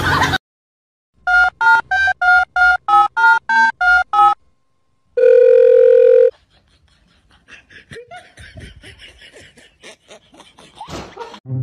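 Telephone keypad tones: about eleven quick two-note beeps as a number is dialed. A single steady tone follows, lasting about a second.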